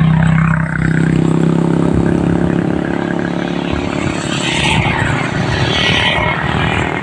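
Road traffic passing close by: vehicle engines and tyre noise in a continuous rumble. A steady engine hum fades out about a second in, and two more vehicles swell and fade past around five and six seconds in.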